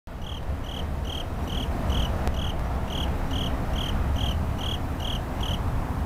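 A singing insect chirping in short, evenly spaced chirps, about two and a half a second, that stop shortly before the end, over a steady low rumble.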